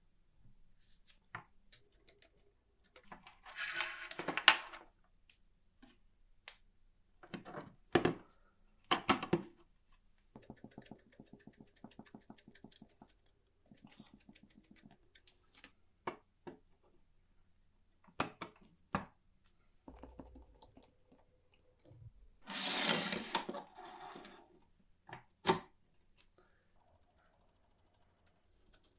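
Metal parts and hand tools being worked on the mechanism of a 1949 Olympia typewriter: scattered sharp clicks and knocks, a run of rapid even ratcheting clicks lasting a few seconds, and two louder scraping, rustling passages.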